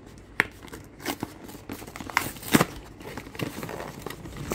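Cardboard box of coffee capsules torn open by hand along its perforated strip: irregular tearing and crinkling with sharp clicks of cardboard, the loudest about halfway through.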